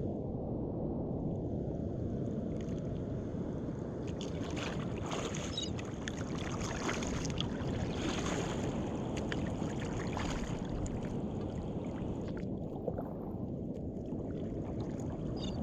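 Water sloshing and splashing against a kayak as it is paddled, over a steady low rush of wind and sea. A run of small, sharp splashes falls in the middle.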